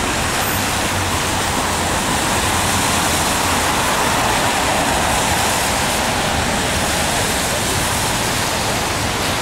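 Steady noise of dense city traffic, the tyres and engines of cars passing on a wide road, swelling slightly about halfway through.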